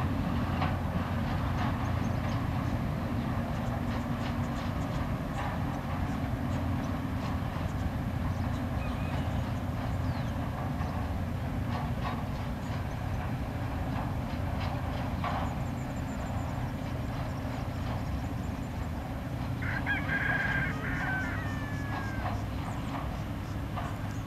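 Log train wagons rolling over a concrete rail bridge at a distance: a steady low rumble with scattered clanks, easing slightly near the end as the last wagons pass. About twenty seconds in, a rooster crows once.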